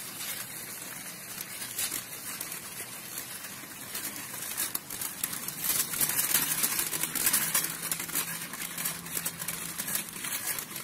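Hard plastic wheels of a child's tricycle rolling over paving stones: a continuous crackling rattle that grows louder about six seconds in.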